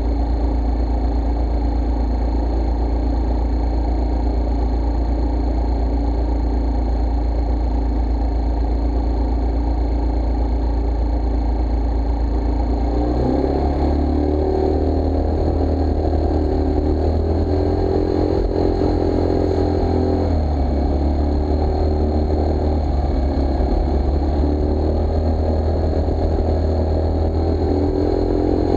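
Scooter engine idling at a standstill, then taking throttle and revving up and down as the scooter pulls away about halfway through.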